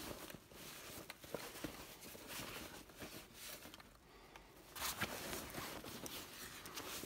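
Fabric of a camouflage backpack-bag rustling as it is held open and handled, with scattered light clicks; the rustling dips about four seconds in, then comes back louder about a second later.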